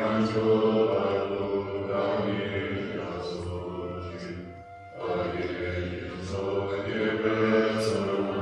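Devotional mantra chanting set to music: voices sing long, held phrases. A brief dip comes just before a new phrase begins about halfway through.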